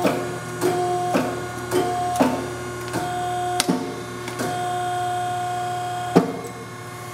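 Neff 5-ton C-frame hydraulic press with its 5 hp electric hydraulic pump humming steadily. The ram is jogged in inch mode: valve clicks and a short tone with each press, about two a second. Then comes one longer stroke of about two seconds that ends in a sharp clunk.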